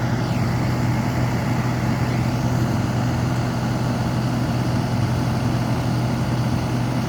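Bucket truck's engine idling steadily, a constant low hum.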